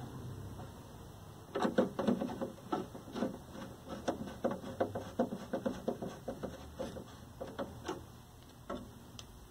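Screwdriver driving screws by hand into a TV's plastic back cover: a run of irregular clicks and creaks, several a second, starting a second or two in and dying away near the end.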